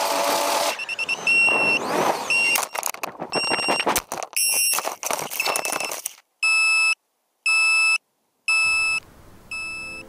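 FPV racing drone crashing: a few seconds of irregular crackling and clattering broken by a high electronic beep. Then the drone's lost-model buzzer sounds a steady series of short high beeps, about one a second, the alarm that helps find a downed quad.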